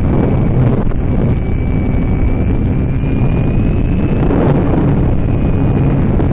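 Heavy wind buffeting the onboard microphone of an FPV model plane in flight, a steady low rush. A faint high whine from the electric motor rises slightly in pitch toward the middle and eases back.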